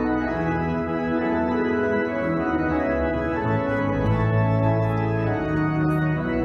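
Organ playing sustained chords over a held bass line that shifts from chord to chord.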